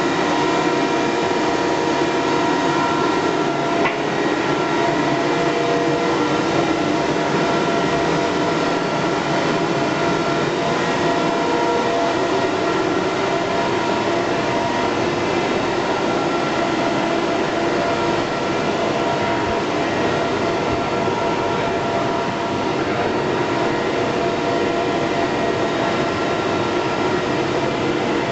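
1973-built Roland R804-6 sheetfed offset printing press running steadily: a dense, even mechanical clatter and rumble with several steady whining tones.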